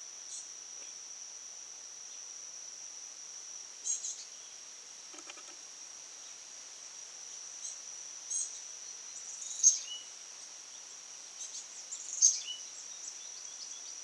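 A steady high insect drone, one unbroken note, with short sharp bird chip calls scattered over it, the two loudest about ten and twelve seconds in.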